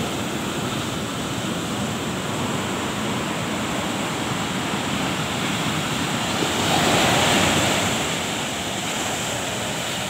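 Heavy surf: high waves breaking and washing up over the shore, with one wave crashing louder about seven seconds in.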